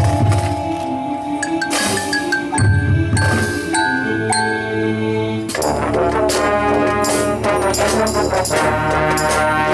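High school marching band playing: mallet percussion such as marimba and glockenspiel over held brass notes and deep low notes. About five and a half seconds in, it swells into a full, loud brass chord with rapid mallet strikes.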